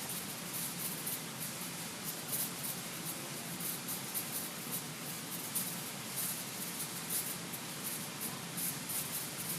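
A dog's nails and paws ticking and scratching irregularly on the floor as it runs out for a glove and back, faint over a steady hiss.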